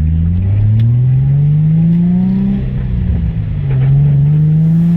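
Nissan 350Z's 3.5-litre V6 accelerating under throttle. The engine note climbs steadily, drops at a gear change about two and a half seconds in, then climbs again.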